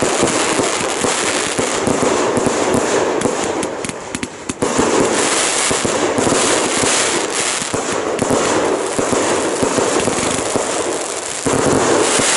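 Fireworks going off in a rapid, continuous barrage of dense crackling and popping, with fresh loud surges about four and a half seconds in and again near the end.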